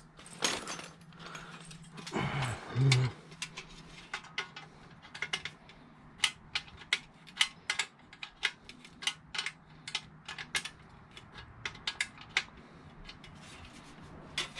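Irregular sharp metal clicks and clinks, about one or two a second, from bolts, hose clamps and hand tools being worked on a homemade metal-detecting sand scoop, over a faint steady hum.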